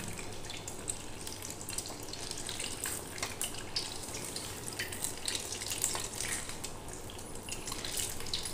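Malpua batter deep-frying in hot refined oil in a metal kadhai: a steady sizzle with scattered crackles and pops.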